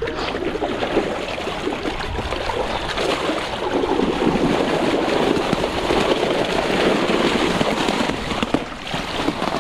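Water splashing and pouring out of a keepnet full of fish as it is hauled from the lake, a dense crackling spatter that is loudest in the middle few seconds.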